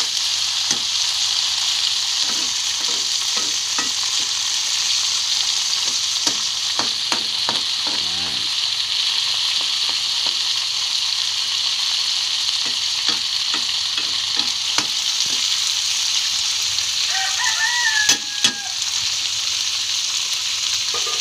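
Crickets frying in hot oil in a wok, a steady sizzle as they are cooked until crunchy, with intermittent clicks and scrapes of a metal spatula stirring them against the pan. A rooster crows once, briefly, about three quarters of the way through.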